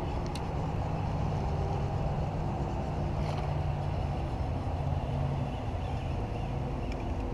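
A steady low motor or engine rumble with a faint hum, running evenly.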